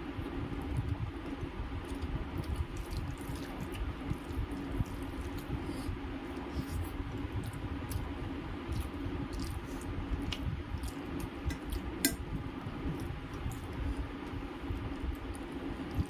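Fingers squishing and pressing soft food on a steel plate, mixed with wet chewing and mouth sounds as many small clicks. There is one sharper click about twelve seconds in, over a steady low hum.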